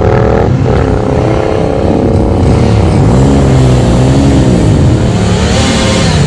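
Drag-racing motorcycle engines at full throttle as two bikes run down the strip. The engine note breaks briefly about half a second in, like a gear change, then climbs slowly in pitch, with a second, lower engine note rising and falling in the middle.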